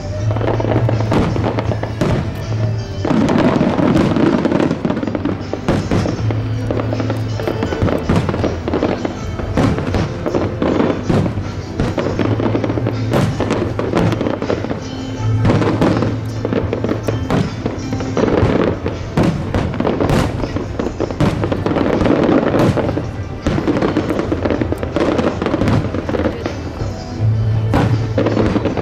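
Fireworks display: many bursts and bangs in quick succession, crackling one over another throughout, with music playing along underneath in held notes.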